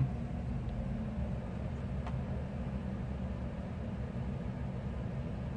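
Steady low background hum or rumble with no speech, and one faint click about two seconds in.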